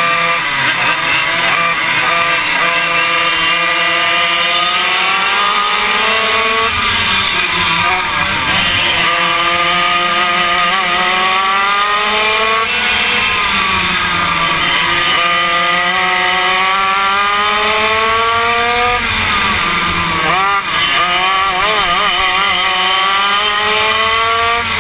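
Yamaha KT100 two-stroke kart engine at race pace: its pitch climbs for several seconds down each straight and drops sharply three times as the kart lifts for the turns, with the other karts' engines running close by.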